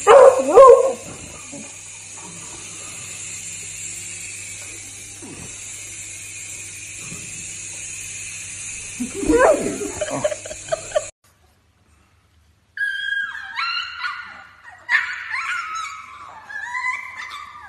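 Small electric motor of a toy RC helicopter whirring steadily while a beagle gives two loud short howls, one at the start and one about nine seconds in. After a cut, beagle puppies whine and yip in high, sliding cries.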